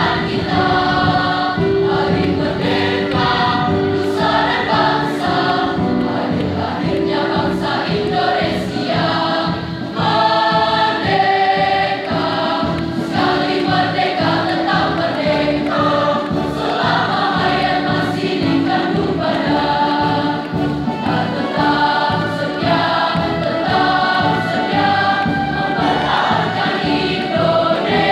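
Mixed school choir of girls' and boys' voices singing together, with sustained notes that change pitch continuously.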